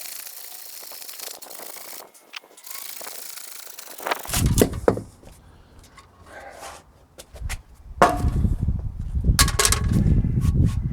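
Hand saw cutting through a green oak log, a rasping hiss in two long strokes. From about four seconds in, knocks and low rumbling as the wood is handled.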